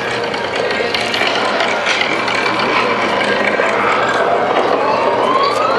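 Clicking, ratcheting machinery sound effects from a projection-mapping show's soundtrack, with a whistle-like tone rising in pitch near the end.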